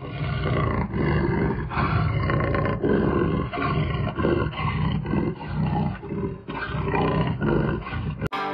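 Big cat roaring in a run of repeated grunting roars, about two a second, cutting off sharply just before the end.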